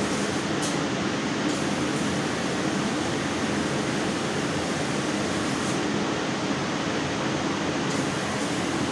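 CNC laser cutting machine cutting a metal sheet, running with a steady hum and hiss.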